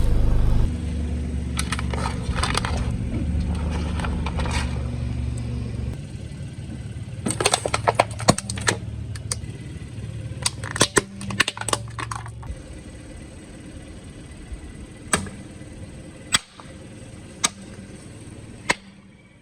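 Car engine hum under clusters of sharp cracking and crackling as objects are crushed under a tyre. The engine hum stops about two-thirds of the way through, leaving a few single sharp cracks.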